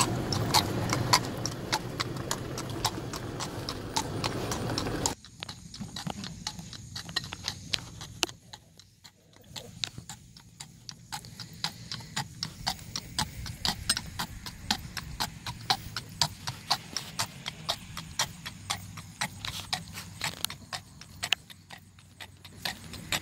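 Tennessee Walking Horse's hooves clip-clopping on asphalt in an even, rapid four-beat saddle gait, about three to four sharp clicks a second. A low steady rumble runs under the hoofbeats at first and stops abruptly about five seconds in.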